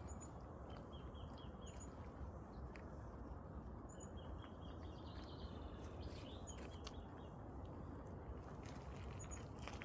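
Outdoor nature ambience: small birds chirping now and then, short high chirps repeating every second or two, over a steady low rushing noise.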